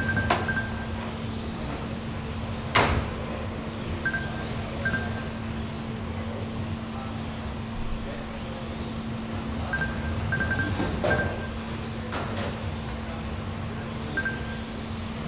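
GT12 1/12-scale electric RC race cars whining past on a carpet track, their motor pitch rising and falling as they go by. Short high electronic beeps from the lap-timing system sound in small groups as cars cross the line. A single sharp knock comes about three seconds in, with a steady low hum throughout.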